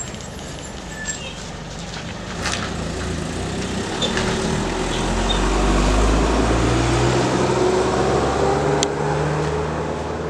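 Motor vehicle engine running, with a low rumble that is loudest about five to seven seconds in and a faint whine that rises slowly in pitch as it accelerates.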